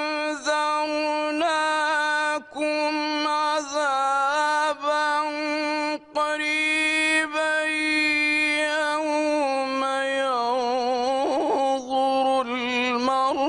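A man's voice reciting the Quran in the melodic, drawn-out mujawwad style. He holds long notes with wavering ornaments, with a few short breaks for breath.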